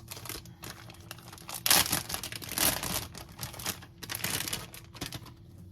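Plastic packaging from sharp cheddar cheese crinkling and rustling as it is handled, in irregular bursts that start up strongly about two seconds in and die away near the end.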